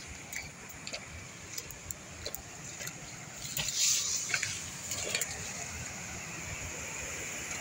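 Rustling and snapping of twigs and leaves as someone pushes through dry brush on foot, loudest a little past the middle. In the second half a steady rush of water from a small waterfall takes over.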